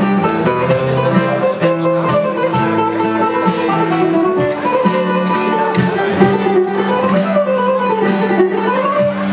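A Greek bouzouki plays a melody over strummed acoustic guitar, with a steady low note underneath. Near the end comes a quick run of notes that falls and then climbs back up.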